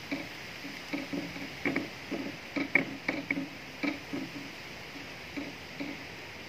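Steady wind hiss in trees, overlaid by a run of irregular light taps or clicks of the same pitch, thickest in the middle few seconds and thinning out near the end.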